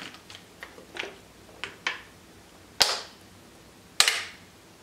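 Plastic water bottle being opened and drunk from: a few light clicks and crackles as the cap is twisted off, then two louder, sharp crackles of the plastic about a second apart as the bottle is tipped up to drink.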